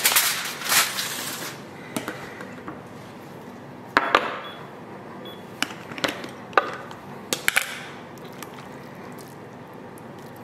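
Aluminium foil crinkling as it is peeled back from a tray, then a string of sharp clicks and knocks as a snap-lid plastic food container is opened and a fork clinks against the dishes.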